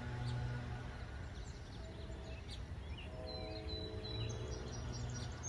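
Distant horn of an approaching NJ Transit ALP-46A electric locomotive sounding for the grade crossing: a steady chord in separate blasts of about a second, with the longest just after the middle. Birds chirp throughout.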